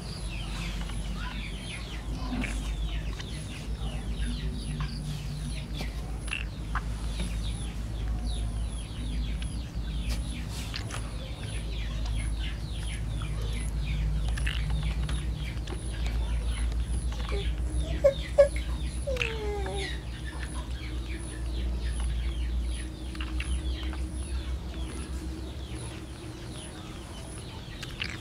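Birds chirping in many short falling calls, over a steady low hum. Two sharp clicks about eighteen seconds in.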